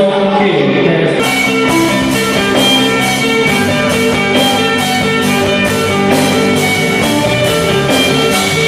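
Rock band playing live during a soundcheck: electric guitar over a drum kit, with steady cymbal strokes about twice a second coming in about a second in.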